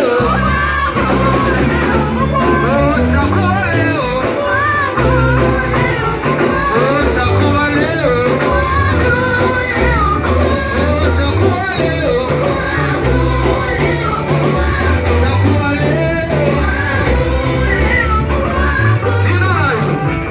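Live church band playing an upbeat praise song with singing over it, a heavy bass line and guitar.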